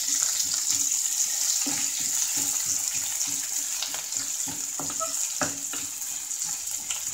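Sliced onions and green chillies sizzling in hot oil in an aluminium pressure cooker, with a metal spoon scraping and tapping the pan now and then as they are stirred.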